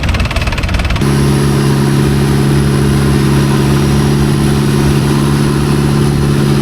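Long-tail boat's engine running loudly at a steady speed. About a second in, a rough, noisy rumble gives way abruptly to an even, steady drone.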